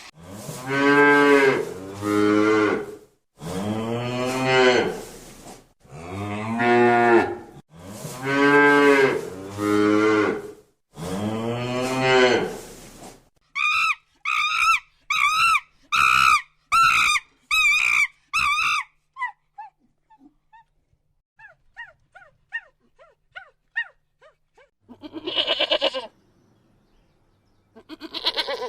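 Cattle mooing: a series of long, low moos, one after another. About halfway in they give way to a run of short, high, wavering calls, then faint chirps, and two more calls near the end.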